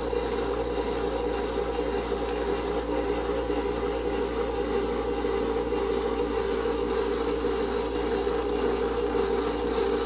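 Electric spiralizer running steadily, its motor humming and grating as the blade cuts sweet potato into ribbons.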